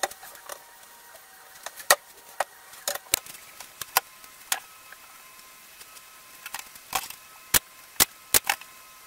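Irregular sharp knocks and taps of plywood cabinet panels being handled, set down and stood up on a wooden workbench, about a dozen, a few of them loud.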